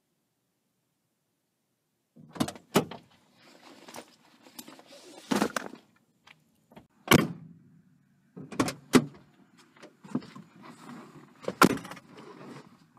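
Handling noise in a car's back seat after about two seconds of silence: a sports bag being set down and shifted, with a string of sharp knocks and thumps and rustling in between.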